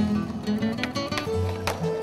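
Background music led by plucked guitar notes, several notes a second.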